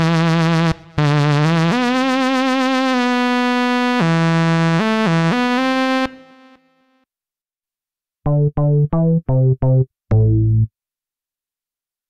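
Roland SRX Dance Trax software synthesizer playing its SawPortaLead preset: a bright sawtooth lead melody with vibrato, gliding in pitch between notes and fading out about six seconds in. After a short silence comes a run of about six short, detached lower notes, the last one deeper and held a little longer, from the Pure Bass synth-bass preset.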